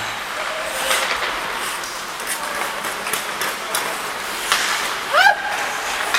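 Ice hockey play: skate blades scraping the ice and sticks clacking on the puck, a run of short sharp hits over a steady hiss. About five seconds in comes one brief rising shout.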